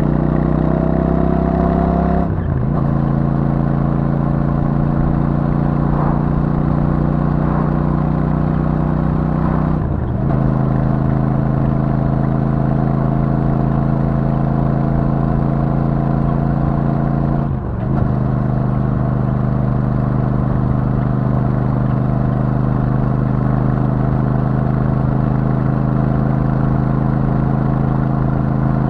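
Royal Enfield Super Meteor 650's 648 cc parallel-twin engine through the stock exhaust, pulling with a rising note for about two seconds. The note breaks off briefly and settles into a steady cruising drone. It dips briefly twice more, about ten and eighteen seconds in.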